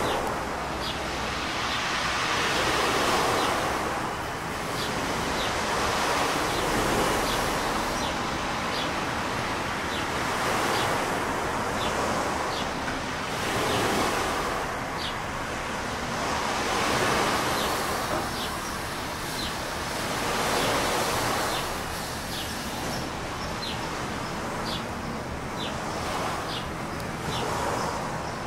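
Sea waves washing ashore, the surf swelling and falling back every three to four seconds. Short high chirps repeat about once a second over it.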